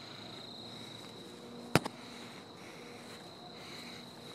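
Steady high-pitched trill of insects in the background, with one sharp click a little under two seconds in and a smaller click just after it.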